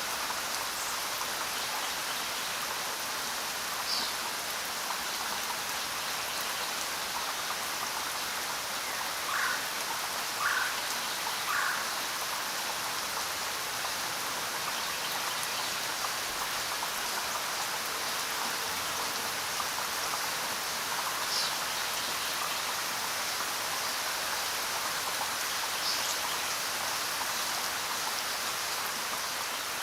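Steady rainfall, an even hiss, with a few louder individual drops landing close by: one about four seconds in, a cluster of three around ten to twelve seconds, and two more later on.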